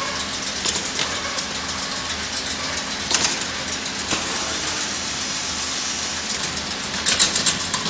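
Automated production-line machinery running: a steady mechanical hum and hiss, broken by short sharp clacks from the moving gripper and fixtures, a quick cluster of clacks coming near the end.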